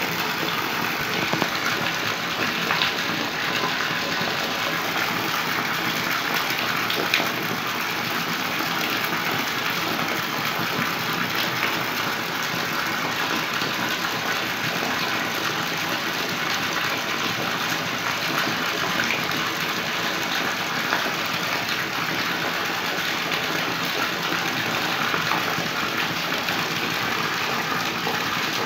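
Steady rush of water, with many small splashes and ticks running through it.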